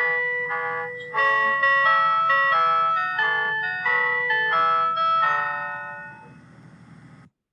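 Japanese railway chime melody: a quick run of bell-like electronic notes over a faint low steady hum. The tune ends about six seconds in and rings away, then the sound cuts off abruptly near the end.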